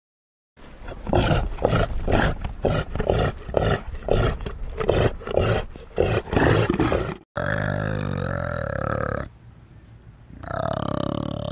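Large animal calling: a series of short, rhythmic roaring calls, about three a second, for several seconds. Then it cuts to long, steady, deeper-pitched calls with a short quiet gap between them.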